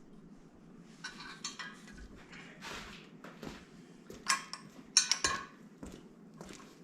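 Loose metal parts and hand tools clinking and rattling in short clusters, the loudest bunch of clinks coming about four to five seconds in.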